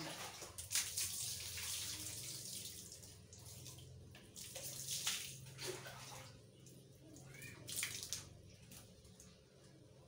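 Water splashing and running in a small tiled bathroom, in uneven gushes: a long stretch over the first few seconds, then shorter splashes and one more burst near the end.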